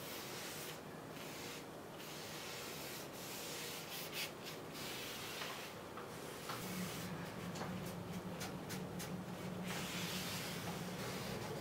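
Wood stain being rubbed into a wooden frame by gloved hands, a hissing rub in repeated strokes with short pauses between them. A low steady hum comes in about halfway through.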